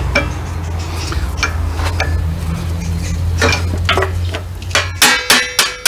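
Steel tools and gears clinking and scraping inside an open Case 580SK backhoe transmission housing as parts are worked into place, over a steady low hum that stops about five seconds in. Near the end comes a quick run of ringing metal taps, about three a second.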